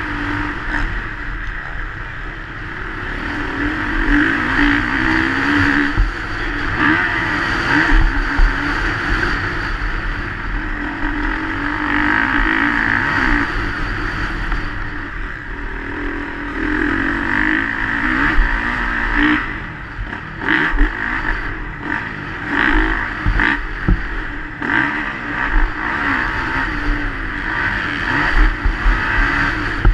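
Onboard sound of a motocross bike's engine at race pace, revving up and falling back again and again through the corners and straights. In the second half it is joined by sharp knocks and clatter as the bike runs over the rough track.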